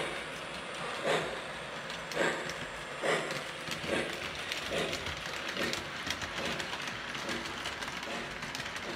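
Lionel O gauge model train rolling along tubular track: a steady rumble of metal wheels on the rails with a regular clack about once a second, coming a little faster in the second half.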